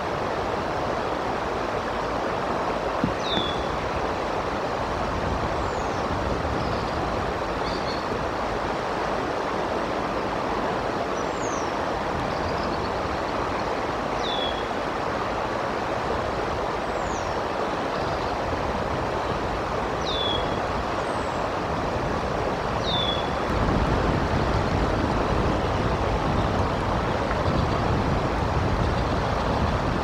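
Steady wind noise rushing over the nest cam microphone, swelling louder about three-quarters of the way through. A small bird gives short, high, falling whistled chirps every few seconds.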